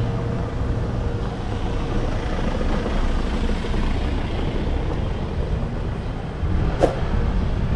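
Steady street traffic rumble, with one short sharp sound near the end.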